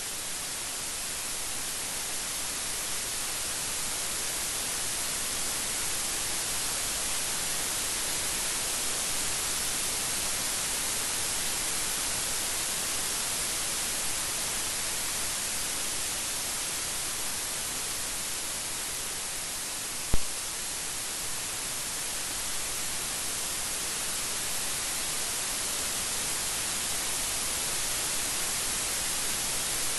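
Steady rain: an even hiss, strongest in the high range, with one sharp click about twenty seconds in.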